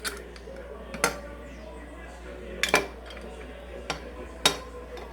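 Sharp metallic clinks and knocks, about half a dozen at irregular intervals, each ringing briefly, as metal parts of a microwave support bracket are handled during assembly.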